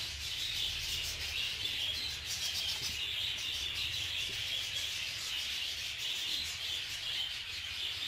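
Continuous high chirping chatter of a flock of budgerigars, with a low rumble underneath.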